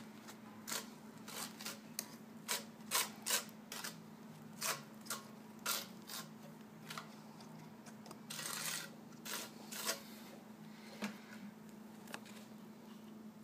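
Irregular small clicks and taps of hands handling ceramic wall tiles and the plastic clips and caps of a tile-leveling system, with a short scraping rub about eight and a half seconds in. A faint steady hum runs underneath.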